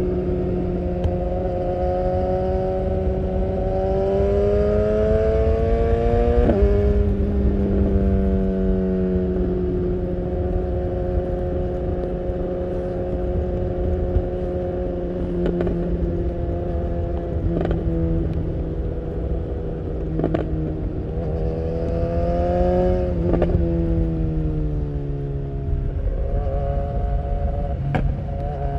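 BMW S1000R inline-four with an Akrapovic full exhaust, heard on board while riding. Its note climbs and then drops sharply at an upshift about six seconds in, holds steady, and climbs and shifts up again a little past twenty seconds. It then falls away as the bike slows and picks up again near the end, over a steady low rush of wind and road noise.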